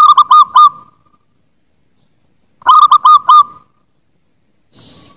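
Zebra dove (perkutut) cooing: two short song phrases about two and a half seconds apart, each a quick run of about four clipped, hooked coos.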